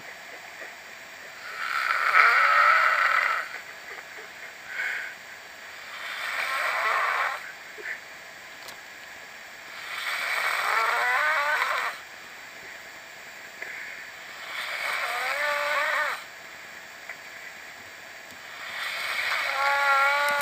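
Snoring in a slow, even rhythm: five snores about four seconds apart, each lasting about two seconds, with a high, wavering whistle-like pitch.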